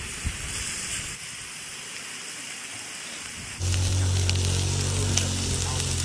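Pork slices sizzling on a Thai moo kata dome grill, a steady hiss. About three and a half seconds in, the sound jumps louder and a steady low hum joins the sizzling.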